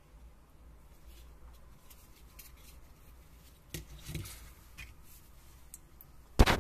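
Plastic smart key fob being handled and opened by hand: faint rustling, a few small plastic clicks about four seconds in, and a louder rapid cluster of clicks and clatter at the very end.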